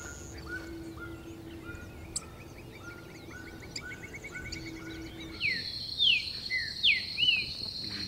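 A seriema calling far off, a faint, even series of short notes about two a second. About five seconds in, a steady high insect buzz starts and a green-winged saltator sings four or five loud downslurred whistles.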